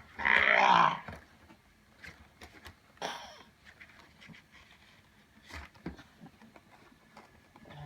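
A cardboard retail box being forced open by hand and knife: a loud rough burst of tearing and straining lasting about a second near the start, then scattered small clicks, scrapes and rustles of the packaging.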